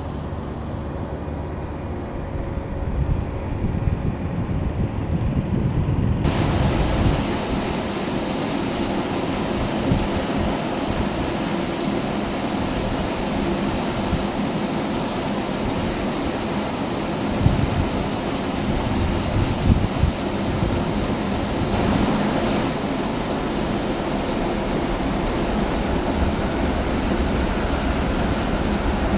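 JR 115 series electric train rolling slowly past: a low rumble with a steady hum. About six seconds in the sound changes suddenly to an even rushing noise, with a few short knocks in the middle.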